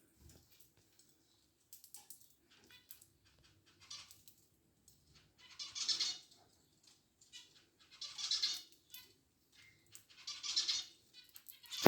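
Pet lovebirds giving three bursts of shrill, rapid chattering calls, each about a second long, with small scratches and clicks between them.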